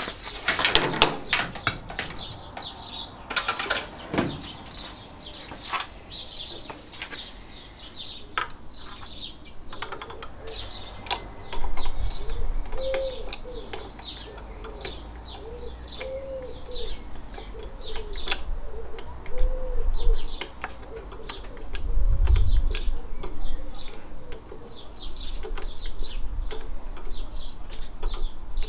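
Short metal clicks and taps of a 10 mm spanner turning the carburettor's mounting nut, with a few louder knocks near the start and a low thud later on. Birds chirp in the background, with a repeated low cooing call for a stretch in the middle.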